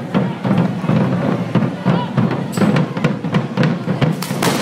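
Drums beating a fast, steady rhythm for a ball de diables devils' dance, with short hissing bursts of fireworks near the end.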